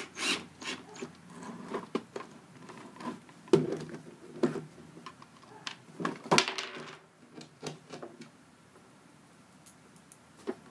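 Scattered knocks and clicks of a cordless drill and plastic pool-cleaner parts being handled and set down on a wooden table, the loudest about three and a half and six seconds in.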